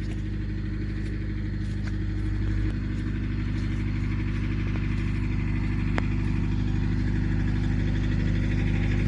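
An engine running steadily, a low hum of several pitches that shifts slightly about three seconds in.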